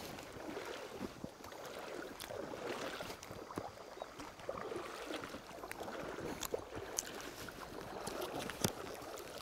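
Legs in waders pushing through shallow river water, sloshing and splashing with each stride, with a few sharp clicks scattered through.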